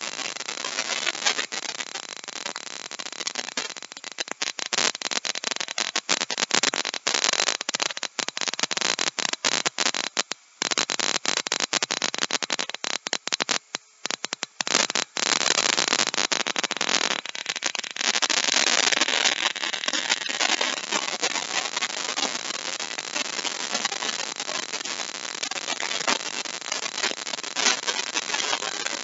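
Compact trim router cutting a mortise in wood, a harsh crackling noise full of sharp spikes, with a few brief drop-outs about halfway through.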